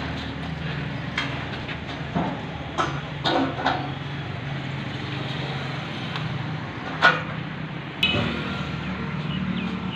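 Steel channel and box-section pieces knocking and clanking now and then as they are handled and set down, several single metallic knocks, some ringing briefly, over a steady low hum.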